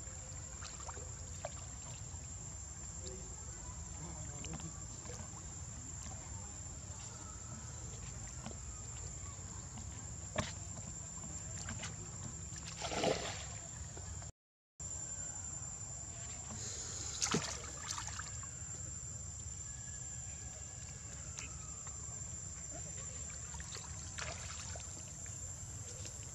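Macaques moving in a pool, with water sloshing and two brief splashes, one about halfway in and one a few seconds later, over a steady low outdoor rumble and a steady high-pitched drone. The sound cuts out for a moment just after the first splash.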